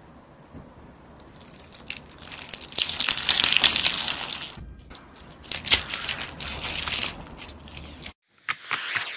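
Slime packed with plastic alphabet cube beads crunching and clicking as fingers squeeze and knead it. The dense crackle builds from about two seconds in and comes in two long runs with a short lull between. Near the end, after a brief break, a few separate sharp clicks.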